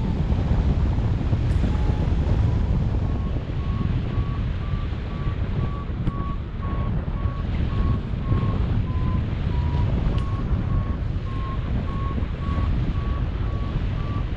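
Heavy wind rush on the microphone with a flight variometer beeping about twice a second, its pitch creeping up, dipping briefly around the middle and climbing again: the climb tone that signals lift while circling in a thermal.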